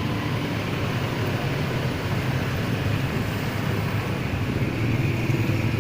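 Steady motor vehicle engine and road noise, a continuous low rumble with no distinct events.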